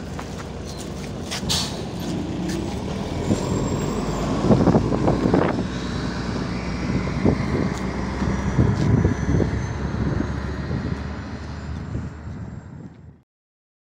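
MAZ 103 city bus running, heard from on board: a steady low engine hum with louder rumbling and knocks in the middle. The sound cuts off suddenly near the end.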